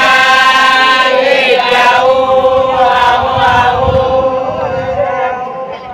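A group of women chanting together with long held notes. The singing grows quieter near the end.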